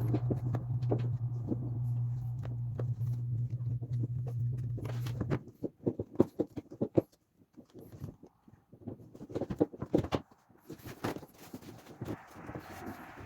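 A steady low hum that cuts off suddenly about five seconds in, then irregular clicks, taps and scrapes of a cracked plastic motorcycle panel and its straps being handled and fitted back into line.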